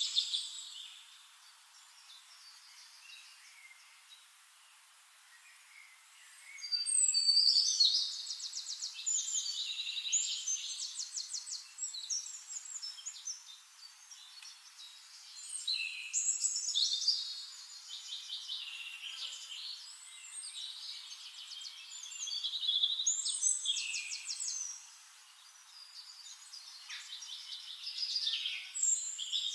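A songbird singing in repeated phrases of fast trills and chirps, with short pauses between phrases.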